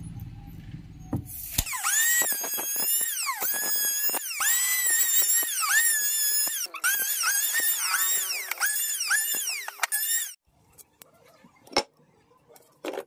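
Electric hand planer shaving a wooden stool leg: its motor whine dips in pitch each time the blades bite and rises again between passes, over and over for about eight seconds, then stops. A low hum comes before it, and two small clicks follow near the end.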